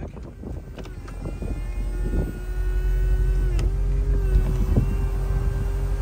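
2014 Chevrolet Corvette's power convertible top lowering: its electric motor comes in with a steady whine about a second in, dipping briefly partway through, over the low rumble of the car's 6.2-litre V8 idling.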